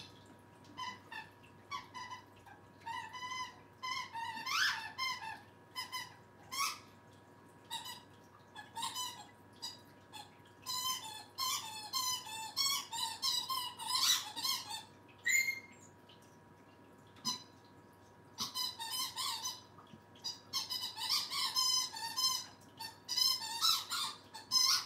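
A squeaky dog toy being chewed and squeezed by a Scottish Terrier puppy. It gives off rapid, irregular high-pitched squeaks in clusters, with short pauses between them.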